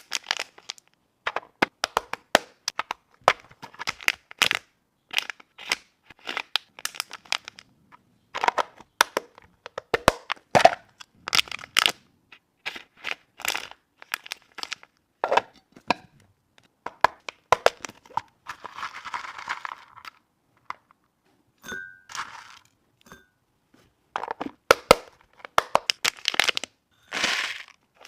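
Hands handling small snack packaging and labels: a quick, irregular run of crisp crackles and crinkles, with a longer scratchy rustle about two-thirds of the way through.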